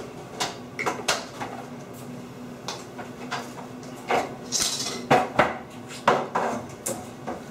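Irregular metallic clanks and knocks of a ladder being set up and climbed, a dozen or so sharp strikes with the louder ones in the second half.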